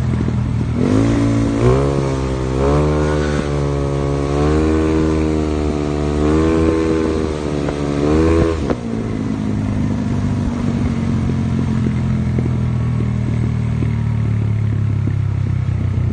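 Yamaha Mio scooter with a built 215cc engine being ridden, its revs rising and falling as the throttle is worked. About nine seconds in the revs drop away to a steadier, lower engine drone.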